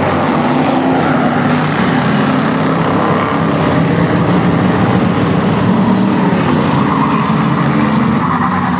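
A pack of racing cars and a school bus running together around an asphalt oval: many engines going loud at once in a steady, unbroken din.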